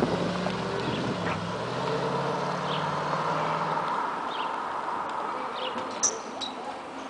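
Audi S5 driving away, its engine a steady low drone that fades out over the first four seconds as the car recedes.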